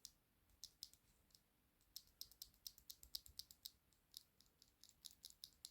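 A stock, unlubricated mechanical keyboard switch being pressed and released over and over by hand, giving a string of faint, sharp clicks. This is the switch's unmodded sound before lubing.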